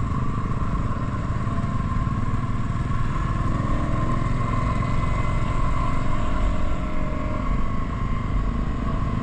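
Motorcycle engine running steadily, an even drone that holds the same pitch and level throughout.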